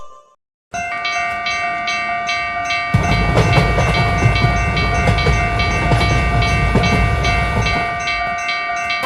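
Train passing: a horn chord held steadily over rhythmic wheel clatter, joined about three seconds in by a loud low rumble.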